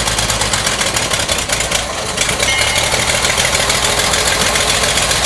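1926 Buick fire truck's engine idling with a steady, even firing beat, the truck standing still.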